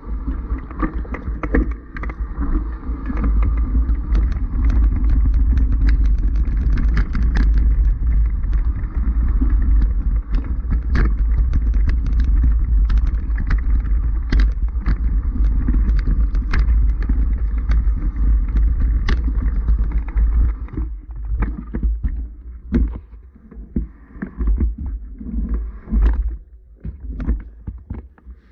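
Mountain bike riding over loose stone scree, heard on an action camera: a steady low wind-and-motion rumble with frequent sharp clicks and clatter of tyres and stones. After about twenty seconds the rumble drops away, leaving scattered knocks and scuffs.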